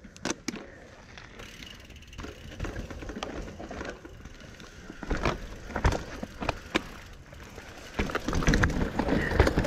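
Mountain bike riding down a dirt trail: tyres rumbling over the ground, with the bike's drivetrain and frame clicking and rattling over the bumps. The ride gets louder and rougher about eight seconds in.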